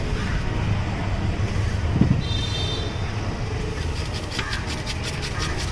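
Steady low street-traffic rumble with a dull thump about two seconds in. From about four seconds in comes a fast run of metal-on-metal strikes, about seven a second: a flat spatula chopping the vegetable filling on a hot dosa griddle.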